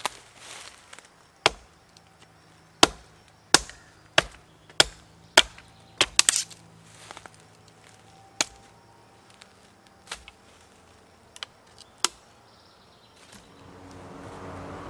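Gränsfors Bruk small forest axe chopping into a dead standing tree: about a dozen sharp, irregular strikes, coming quickly at first and then spacing out. Near the end the chopping stops and a steady hiss takes over.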